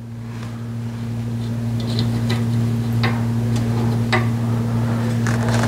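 A steady low hum runs throughout and slowly grows louder, with a few separate light clicks and taps of small metal parts being handled, about four in all, spread over the middle of the stretch.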